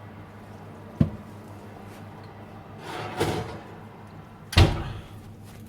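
Oven door and oven dish being handled: a sharp knock about a second in, a longer scraping noise around three seconds, and a loud thump near five seconds.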